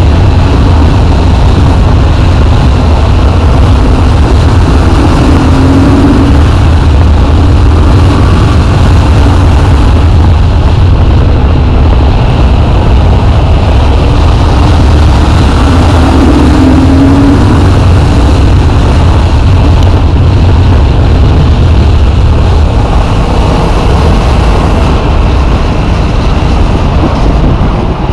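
Yamaha MT-07 motorcycle's parallel-twin engine running at road speed under a heavy, steady rush of wind noise on the microphone. The engine note swells briefly a few times, and the noise eases slightly near the end.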